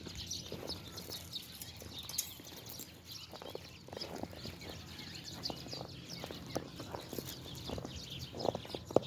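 Footsteps crunching in snow at a walking pace, about two steps a second, one step louder near the end.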